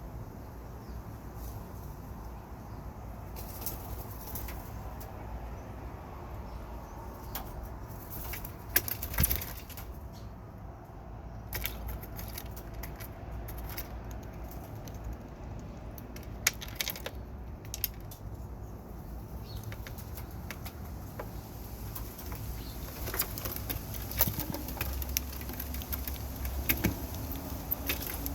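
Birds' wings flapping, with scattered sharp taps and clicks, over a steady low rumble; a low hum comes in near the end.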